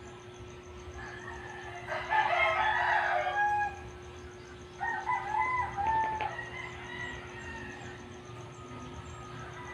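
A rooster crowing twice, each crow about a second and a half long, the second starting about three seconds after the first.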